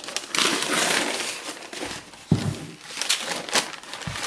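Protective wrapping crinkling and rustling as it is pulled off a table-top radio. There is a dull thump about two seconds in, more crackles after it, and another thump near the end.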